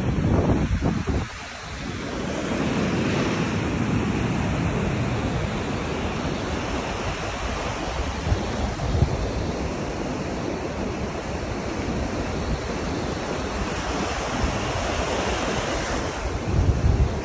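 Small waves breaking and washing up a sandy beach, a steady wash of surf, with wind buffeting the microphone in the first second or two and again near the end.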